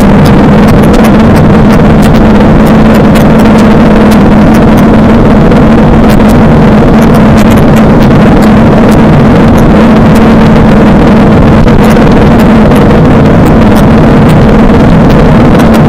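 Suzuki DL650 V-Strom's V-twin engine running at a steady, unchanging pitch, very loud on the onboard recording, with scattered clicks over it.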